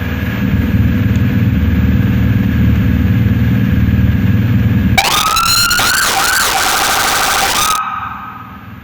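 Whelen electronic vehicle siren being tested through its tones: a loud low pulsing tone for about five seconds, then a few seconds of rising and falling wails ending in a fast warble, which cut off near the end.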